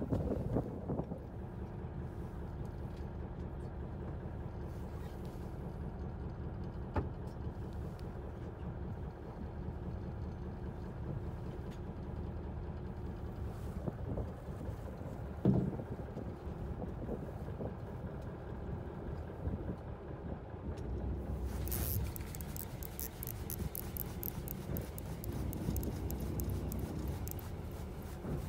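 Fishing boat's engine running steadily with a low hum, with a few knocks, the loudest about halfway through. About 22 seconds in, a rapid fine rattling joins it.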